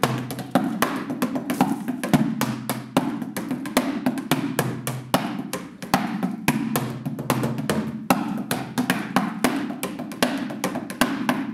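Wooden drumsticks beating a quick, steady rhythm on cardboard boxes used as drums, a run of dry taps and dull thuds.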